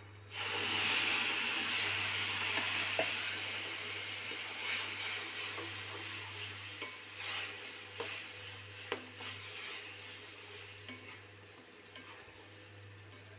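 Ground tomato purée hitting hot oil and spices in a kadhai: a loud sizzle that starts suddenly and slowly dies down as it is stirred. A steel spoon scrapes and clicks against the pan now and then.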